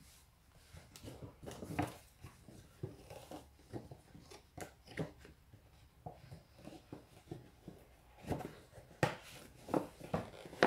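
A paper gift bag and its wrapping being handled: short, irregular rustles and crinkles, louder near the end.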